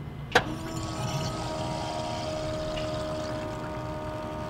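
A click about a third of a second in, then an electric fuel pump hums steadily with fuel splashing, as fuel leaks out of the Holley carburetor on the small-block Chevy V8.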